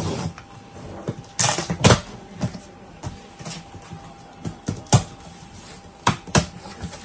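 Cardboard inverter box being opened by hand: its flaps are pulled open and handled, giving a series of separate scrapes, rustles and knocks, the loudest bunched about one and a half to two seconds in and again around five seconds.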